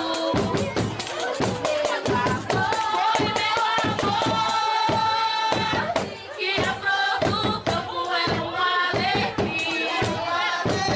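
Folk dance music: singing over fast, steady percussion beats with a tambourine-like jingle.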